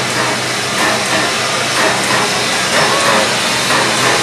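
Bulleid Battle of Britain class steam locomotive 34067 'Tangmere' rolling slowly past close by, with a steady loud hiss of steam escaping from around its cylinders.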